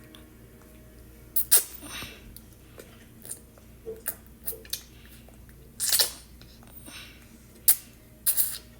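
A baby's mouth noises while being spoon-fed carrot puree: a string of short, sharp, wet puffs and smacks, spaced irregularly, with a slightly longer sputter about six seconds in and a quick pair near the end.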